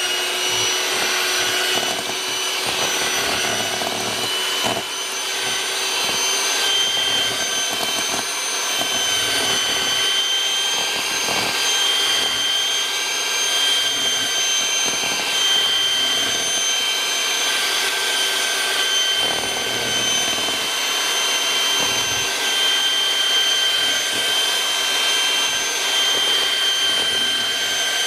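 Electric hand mixer running with a steady whine, its beaters whipping chilled heavy cream and powdered sugar in a stainless steel bowl on the way to stiff peaks. A brief knock about five seconds in.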